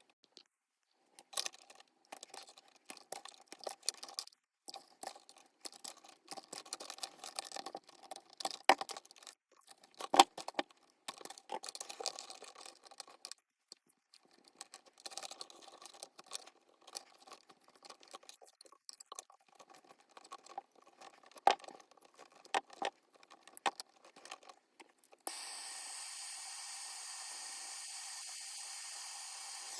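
Hands working stranded electrical wire and tools: irregular clicks, scrapes and rustles with a few sharp snaps. About 25 seconds in, a steady hiss starts and holds.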